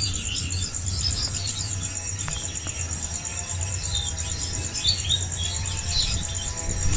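Wild birds chirping in short, scattered calls over a steady, pulsing high insect trill like a cricket's, with a constant low rumble underneath.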